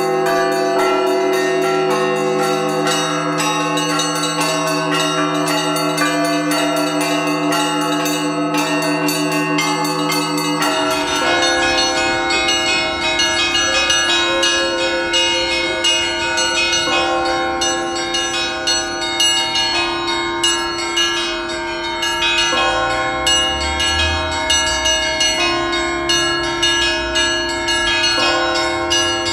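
Russian Orthodox church bells ringing, several bells of different pitches struck in quick, overlapping succession. About eleven seconds in, the sound changes abruptly to another set of bells, with more background noise underneath.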